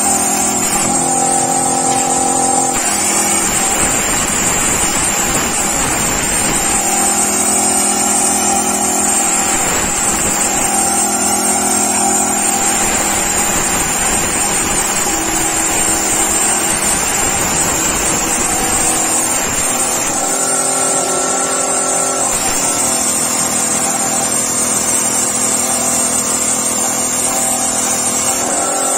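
CNC plasma cutting machine running, its drive motors giving steady whining tones that shift pitch as the moves change. A hiss joins in about three seconds in and stops about twenty seconds in.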